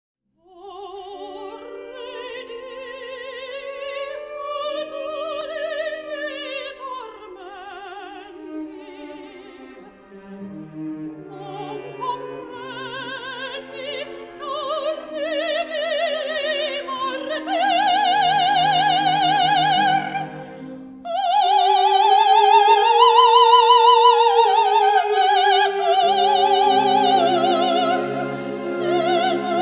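Operatic soprano singing with wide vibrato over an orchestral accompaniment. It starts softly, swells, and is loudest in a high sustained phrase about two-thirds of the way through.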